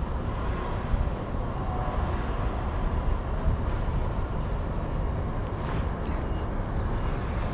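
Steady low outdoor rumble with no single clear source, with a few faint clicks about six seconds in.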